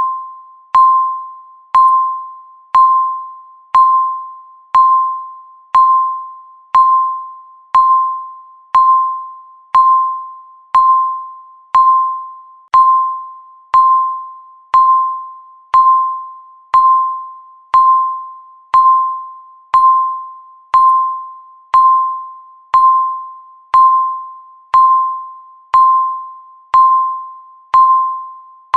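Countdown timer beeping once a second: a single mid-pitched ringing tone that starts sharply and fades away before the next one, repeating evenly.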